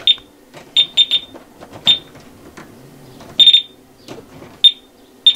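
Pen-style voltage tester beeping as it is held to live wiring: about eight short, high beeps at uneven spacing, one held a little longer about three and a half seconds in. The beeping is the tester picking up voltage: still a little bit of power there.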